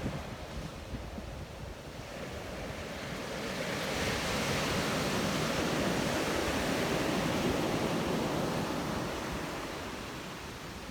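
Sea surf on a beach: a wave swells up about a third of the way in, breaks and washes for a few seconds, then fades near the end. Wind rumbles on the microphone underneath.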